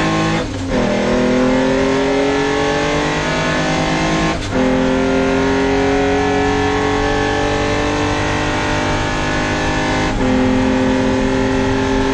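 Modified engine of a 1962 Austin-Healey historic race car running hard on track, pulling up slowly in pitch through each gear, with brief dips at three gear changes: about half a second, four and a half seconds and ten seconds in.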